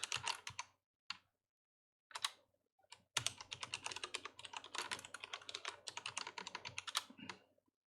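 Typing on a computer keyboard: a few quick keystrokes, a pause of about two seconds, then a long fast run of keystrokes from about three seconds in until shortly before the end.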